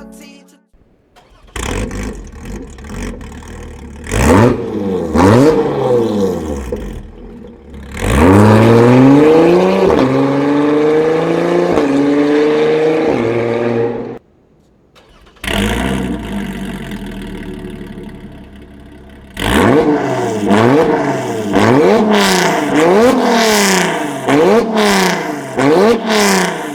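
Lotus Exige's 3.5-litre V6 through a titanium exhaust, revved in quick repeated blips with the pitch rising and falling, in several loud bursts separated by brief silences.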